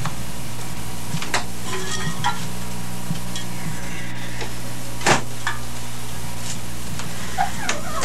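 Steady electrical hum and hiss from a band's amplifiers and PA, idling with no music playing. Scattered clicks and knocks sound over it as gear is handled; the loudest comes about five seconds in.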